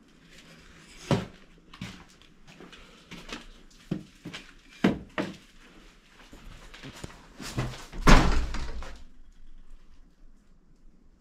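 Scattered knocks and thumps from a wooden bed frame and a door being handled in a small room, with the loudest bang about eight seconds in.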